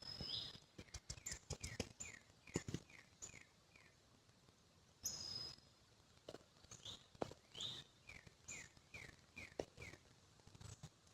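A songbird singing twice, about five seconds apart: each song is a high whistled note followed by a quick run of about six short down-slurred notes. Scattered faint clicks and taps around it.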